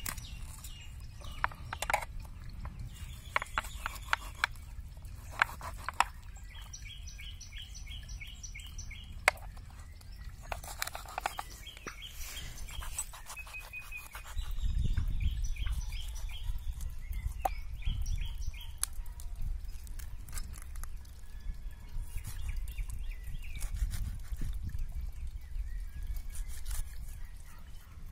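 A knife cutting a chicken apart on a steel plate, with scattered sharp clicks and knocks of the blade on the plate and bone. Birds chirp in the background, and about halfway a low rumble sets in and stays.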